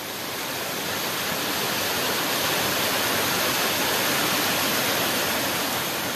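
Waterfall: a steady rush of falling water that swells and then fades away near the end.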